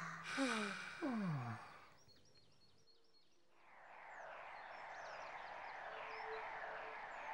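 A couple of falling sighs in the first second and a half, then after a brief lull a steady countryside background with birds chirping.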